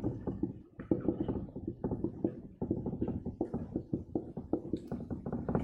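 Marker writing on a whiteboard: a quick, irregular string of small taps and scratches as the letters are stroked on.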